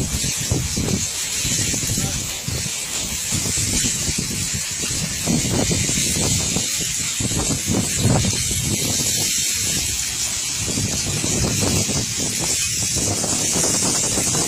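Sea waves laden with slush ice washing in, a steady hiss over an uneven low rumble.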